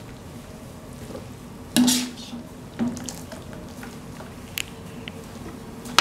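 Kitchenware being handled: a sharp knock about two seconds in that rings briefly, a smaller knock a second later, then a few light clicks, over a steady low hum.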